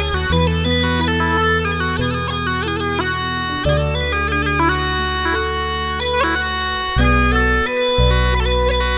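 Background music led by a bagpipe playing a quick, busy melody over long held bass notes that change pitch every few seconds.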